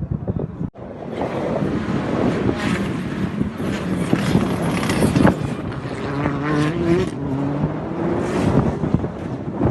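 Rally car driven hard on a stage, its engine revving up and falling back between gears, with many sharp cracks through the noise. The sound drops out briefly just under a second in.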